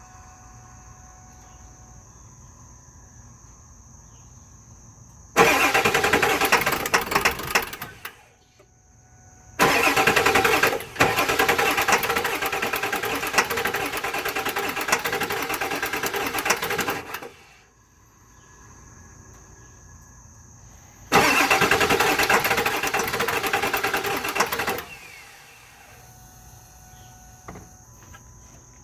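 Ford 7.3 Power Stroke V8 turbodiesel cranking on its starter in three attempts, about three seconds, eight seconds and three and a half seconds long, without catching: a crank-no-start. Between attempts a faint steady high-pitched whine.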